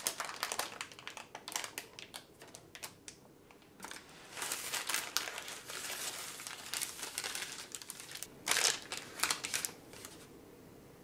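Baking parchment paper crinkling and rustling in irregular bursts as it is handled and peeled back from the sides of a baked cheesecake. There is a short lull about three seconds in, the loudest crackles come near the end, and then it stops.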